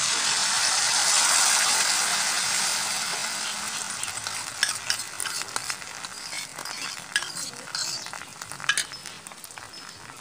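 Beaten egg frying in hot oil in a wok: a loud sizzle that slowly settles, with sharp crackles and pops of oil from about four seconds in as the omelette sets.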